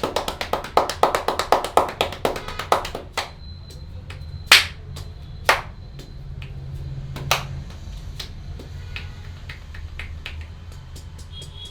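Rapid rhythmic hand-tapping on the head during an Indian head massage, about eight quick strikes a second for the first three seconds. Then three single sharp snaps about a second apart, followed by softer scattered taps.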